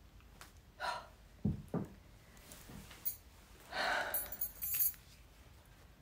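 Handling noise on the recording device as it is reached for and touched: a short rustle, two dull thumps, then a longer rustling, clinking scrape with sharp clicks about four seconds in.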